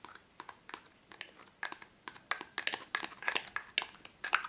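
Mixing tool scraping glue-like ooze out of a plastic measuring cup: a run of irregular sharp clicks and short plastic scrapes.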